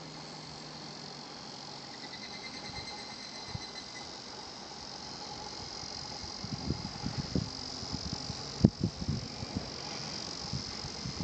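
Higurashi (evening cicadas) calling, a steady high insect chorus with a pulsed trill a couple of seconds in. Low thumps and one sharp knock come in the second half.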